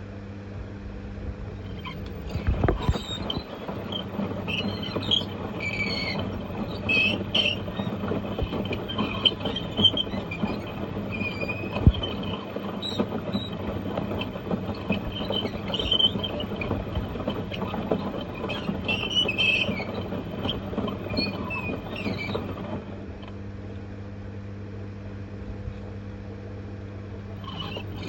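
LG F1222TD washing machine running with its drum bearings gone: a steady motor hum with rough rumbling and high squeals over it, typical of failed drum bearings. The rumbling drops back to the plain hum for a few seconds near the end, then starts again.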